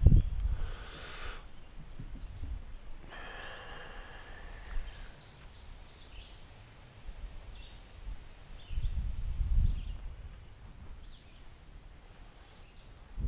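Outdoor pond-side ambience with wind buffeting the microphone in low gusts, strongest near the start and again around nine seconds. A brief hiss comes about a second in and another around three to five seconds, with a few faint short chirps in between.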